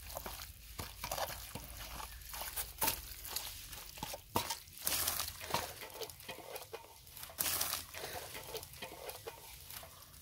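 Hands mixing a wet spice masala of chilli powder, turmeric, cumin, garam masala, ginger-garlic paste and ground tomato, giving irregular soft squishing and light clicks.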